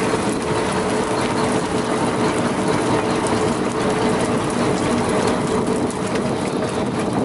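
A mass of small silvery fish pouring out of a net and flapping on the boat's deck, a dense rapid pattering clatter, over the steady hum of the boat's engine.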